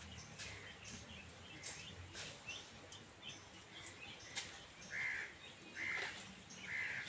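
Birds chirping, with a few sharp clicks; from about five seconds in, one bird repeats a short call roughly once a second.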